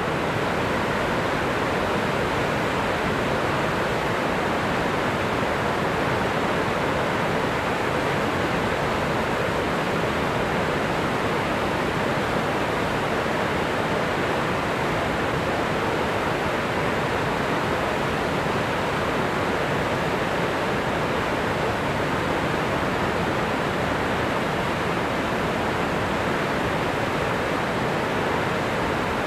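Water pouring steadily over the stepped stone sills and gates of the old Erie Canal locks: a constant, even rushing with no pauses.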